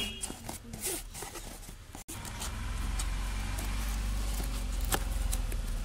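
A cardboard box being handled, with light scraping and tapping. After a brief break about two seconds in, a steady low rumble takes over, with a few faint taps as a tape-wrapped box is handled.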